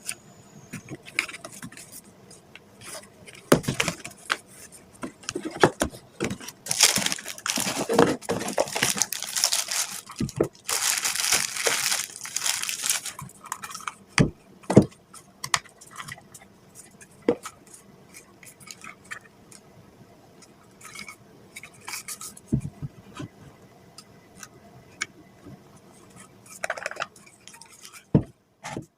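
Unboxing a guitar fuzz pedal: scattered clicks and knocks as the box and pedal are handled, with two longer spells of rustling and tearing packaging, about seven and eleven seconds in.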